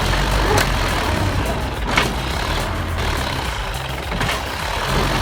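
A heavy machine's engine running steadily under load, with a few sharp cracks like wood or roots breaking about half a second, two seconds, nearly three seconds and four seconds in.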